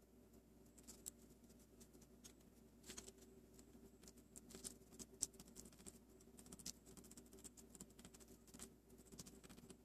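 Faint, scattered small clicks and taps of a plastic spoon working in a plastic tray and hands handling a plastic candy-making kit, the sharpest click about halfway through.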